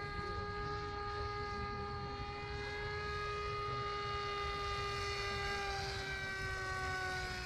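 Radio-control model airplane flying: a steady motor-and-propeller whine whose pitch sinks slightly near the end.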